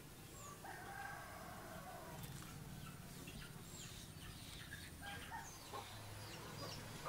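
Faint calls of village chickens, including a drawn-out call from about half a second to two and a half seconds in, with short high chirps scattered through.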